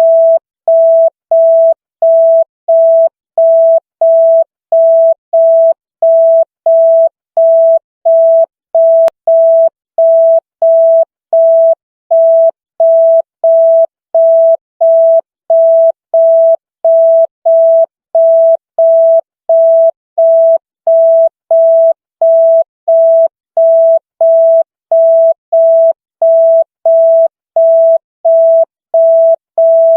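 Electronic signal tone of a single pitch beeping on and off evenly, about three beeps every two seconds, like a telephone busy signal.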